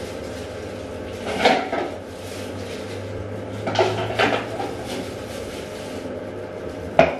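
Bottles and containers knocked and set down on a bathroom vanity: a clatter about a second and a half in, two more around four seconds, and a sharp knock near the end, over a low steady hum.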